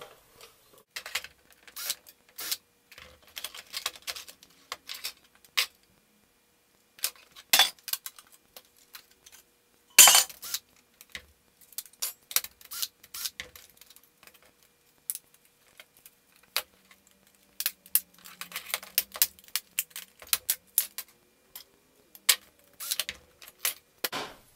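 Small metal and plastic parts of a computer CD-ROM drive clicking and clattering as it is taken apart by hand: irregular sharp knocks, with a louder clack about ten seconds in.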